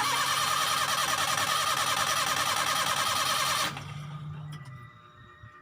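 A starter motor cranks a car engine with a fast, even churning for about three and a half seconds, then stops suddenly without the engine catching. A fainter low hum follows.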